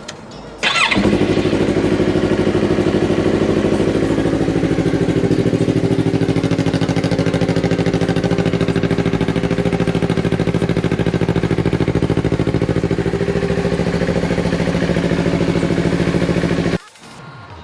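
2019 Yamaha R3's 321 cc parallel-twin engine starting on the electric starter about half a second in, then idling steadily. It is being run after an oil change to circulate the fresh oil before the level is rechecked. It cuts off abruptly near the end when the engine is switched off.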